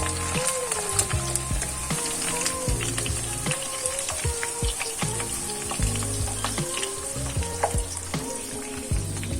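Chicken wings sizzling in a frying pan, with a steady hiss and many small crackles throughout, under a background music track.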